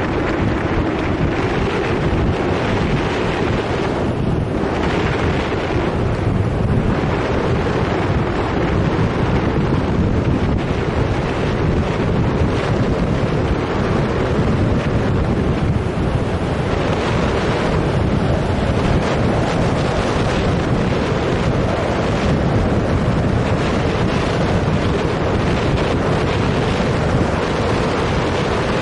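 Steady wind rushing over the microphone of a camera on a moving bicycle, a heavy, low rush with no let-up.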